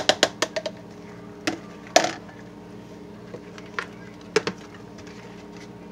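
Metal spoon tapping and knocking against a plastic measuring jug of thick, freshly reacted soap paste: a quick run of light taps at the start, then a few separate knocks as the spoon and jug are handled.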